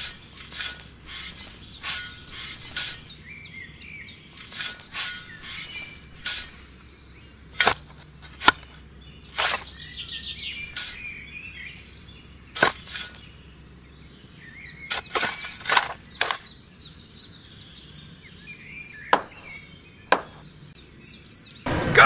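A small metal hand trowel scraping and digging into fine sand, with irregular sharp scrapes and clicks at uneven intervals. Birds chirp faintly in the background.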